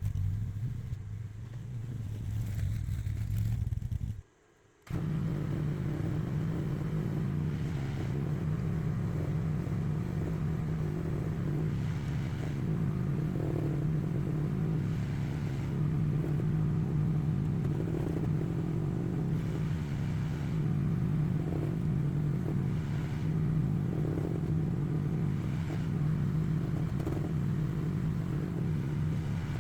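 AGT LH12R mini excavator engine running steadily at working speed, with brief scrapes and clatter from digging recurring every couple of seconds. The sound cuts out for under a second about four seconds in.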